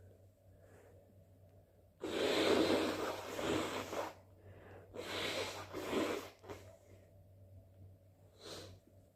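A person blowing their nose hard and wet, twice: the first blow lasts about two seconds, and the second, about a second later, lasts about a second and a half and swells twice. A shorter breath or snort follows near the end.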